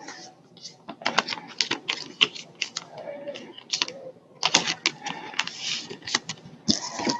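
Trading cards being handled during a pack break: clusters of quick clicks and snaps as cards are flipped and handled, thickest about one second in, around four and a half seconds, and near the end.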